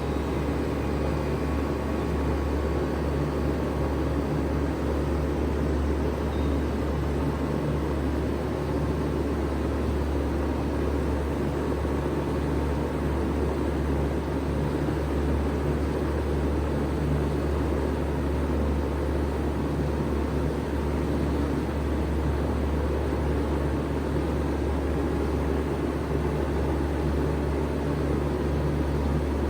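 1995 Bard 3-ton wall-hung heat pump running in cooling mode just after start-up, with a steady low hum and an even rush of air noise.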